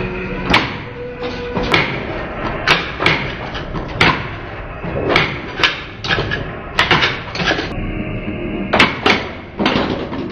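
Bally The Shadow pinball machine in play: about a dozen sharp clacks and thumps at irregular intervals from the ball, flippers and solenoid-driven targets and kickers.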